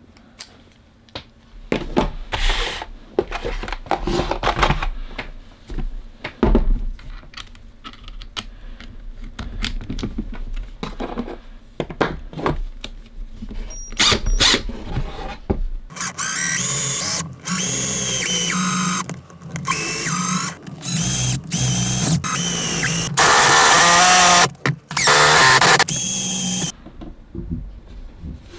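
Metal drill bits clicking and rattling as they are handled, then, about halfway through, a small cordless drill running in repeated short bursts, starting and stopping over and over while drilling into a plaster hand cast.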